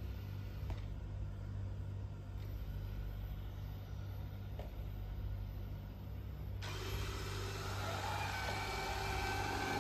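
Roborock robot vacuum running with a steady low hum. About two-thirds of the way in, its suction fan starts up: a louder rushing whine with several steady tones that keeps building.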